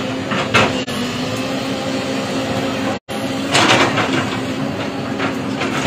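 JCB tracked excavator's diesel engine running steadily under load as its bucket pushes a large boulder over the ground, with a few short knocks from the rock and bucket.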